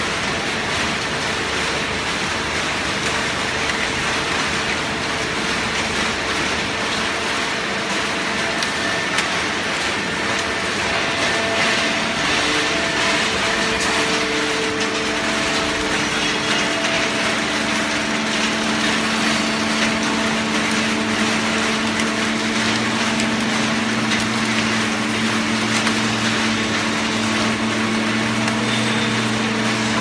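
Automatic horizontal hydraulic baler running: a steady machine din over the hum of its hydraulic power unit. A deeper hum comes in partway through and grows stronger.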